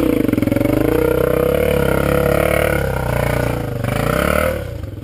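Dirt bike engine revving up and down under throttle, then dropping back to a lower idle near the end.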